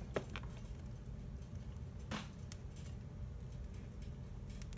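Faint handling noise from stripped stranded copper wire ends being twisted by hand, with a few soft clicks and rustles over a low steady room hum.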